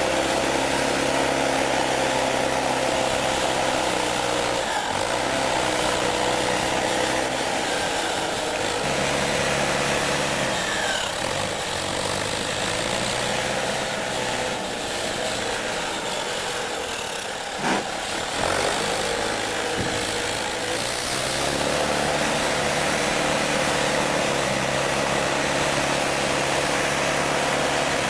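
Digger's diesel engine working, its revs stepping up and down every few seconds. It eases off for a few seconds around the middle, and there is a single sharp click about two-thirds of the way through.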